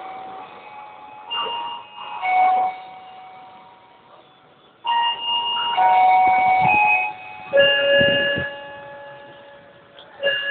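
A melody of held electronic chime notes, keyboard-like, of the kind played over a railway station's public-address speakers. The notes come in short phrases with a quiet pause in the middle, after the noise of a passing train fades in the first moments.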